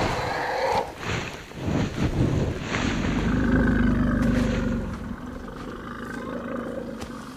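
Deep, rough bellowing roars from two rival bulls fighting, with the loudest, longest roar about three to five seconds in before it fades away.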